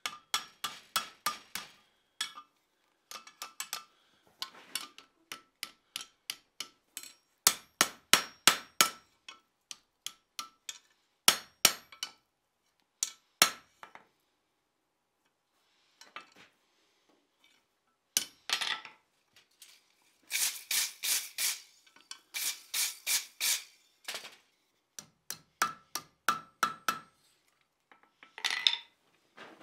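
A hand hammer striking red-hot steel over an anvil horn, forging a hook on the end of a round bar. The blows come in quick runs of several strikes, with a ringing note from the anvil and short pauses between runs.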